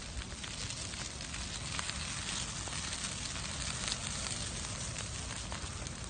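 Forest fire burning through trees and brush: a steady hiss of flames with many small crackles and pops scattered throughout.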